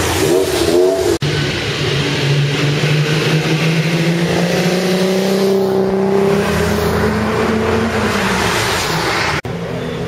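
Sports car engines passing on a wet street: a quick rev up and down, then one car's long steady engine note that falls in pitch near the end as it moves away. The sound breaks off abruptly twice.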